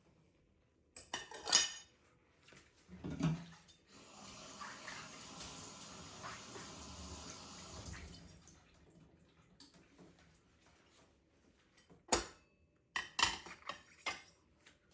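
Dishes and cutlery clattering at a kitchen sink, with water running from the tap for about four seconds in the middle.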